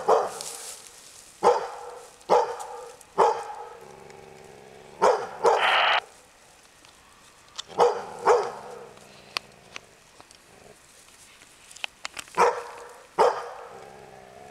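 A hunting dog, a Bull Arab, barking about ten times in short sharp barks, often in pairs, with a quiet spell of a few seconds after the middle. Each bark trails off in an echo.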